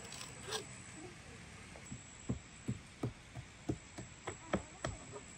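Hands pressing and sealing rolled qutab dough on a floured wooden board, giving a run of soft, irregular knocks, about ten in the last few seconds.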